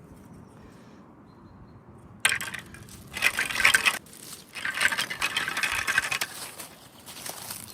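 Packaging being handled and opened, crinkling and rustling in several irregular bursts that start about two seconds in.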